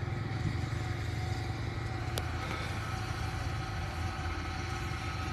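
Rice combine harvester's engine and threshing machinery running steadily with a low hum and a few steady whining tones, with one short click about two seconds in.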